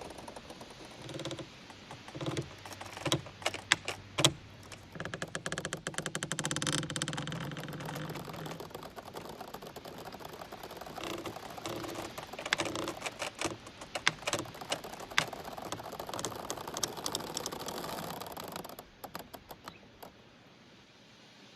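Giant bamboo stalks creaking and rubbing against each other as they sway in the wind. The sound comes as runs of rapid ratchet-like clicks and sharp knocks, with a longer, lower rough creak about six to eight seconds in. It fades out near the end.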